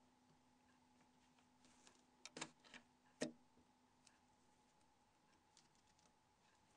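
Near silence: faint room tone with a steady low hum and a few small, sharp clicks about two and a half seconds in and once more about a second later.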